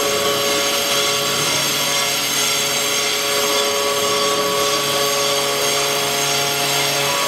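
5-axis CNC router's spindle running and milling a metal workpiece: a steady whine of several held tones over a constant cutting hiss.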